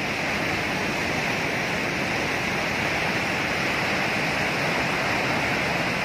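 Dhuandhar Falls on the Narmada river: fast, muddy water pouring over the rocks in a steady, unbroken rush.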